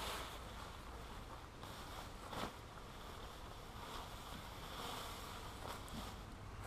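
Tarp fabric rustling faintly as it is lifted, shaken out and draped over a hammock ridgeline, with one brief sharp sound about two and a half seconds in.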